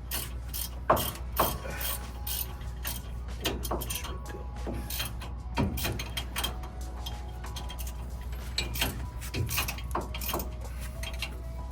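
Hand ratchet wrench clicking in short, irregular runs of sharp clicks while bolts are run in.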